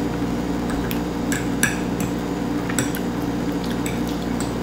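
A fork clinking and scraping against a plate in a scatter of light, sharp clicks, over a steady low hum.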